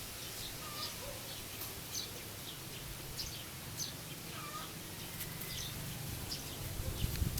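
Birds chirping: many short high chirps and a few lower calls scattered throughout, over a low rumble of wind.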